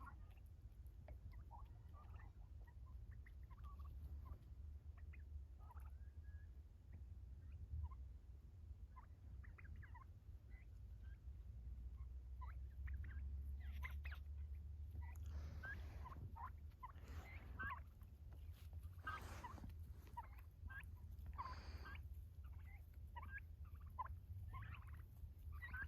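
A flock of Royal Palm turkeys making short, scattered calls, sparse at first and coming thicker and louder from about halfway through, over a steady low rumble.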